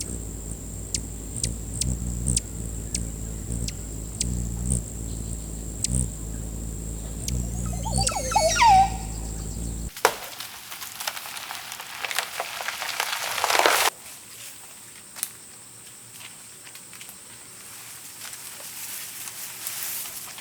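Outdoor ambience with insects keeping up a steady high drone and a bird call near the middle. After an abrupt change, a few seconds of loud rustling noise build and then cut off sharply.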